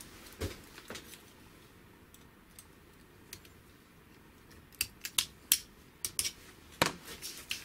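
Light metallic clicks and ticks of pliers and small steel parts being fitted on the shaft of a Vespa primary gear. A few come early, then a quick cluster of sharp clicks about five to seven seconds in.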